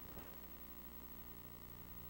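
Faint steady electrical hum with hiss, and no distinct working sound.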